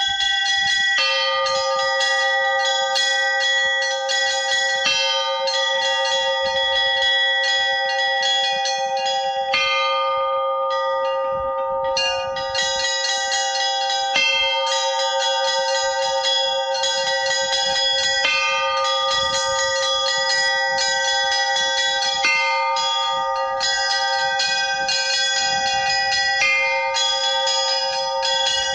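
Russian-style chiming (zvon) on a set of stationary belfry bells, rung by ropes pulled on the clappers. Small bells chime in a fast, steady pattern over a lower bell that is struck again every few seconds, and all the bells ring on together.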